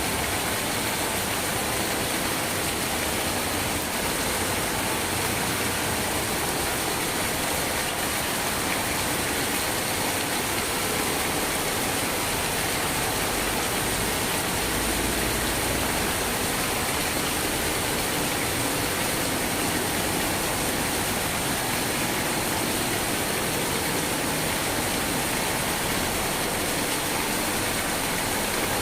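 Steady, even rain noise.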